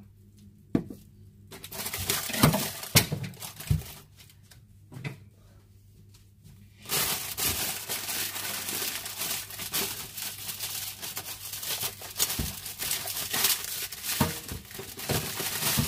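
Plastic packaging crinkling and rustling as a wrapped food parcel is opened by hand. A burst of crinkling with sharp crackles comes about a second in, then a short lull, then steady crinkling from about halfway on as a plastic bag is cut and pulled open.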